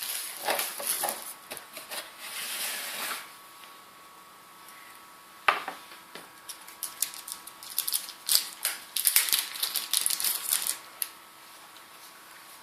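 Packaging and camera parts being handled during an unboxing: rustling and a scatter of sharp clicks and taps, with one sharp click about five and a half seconds in. A dense run of clicks follows and stops about eleven seconds in.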